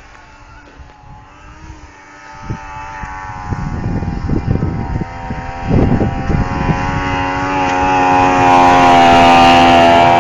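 Snowmobile engine running at a steady pitch, growing steadily louder as it approaches and loudest near the end.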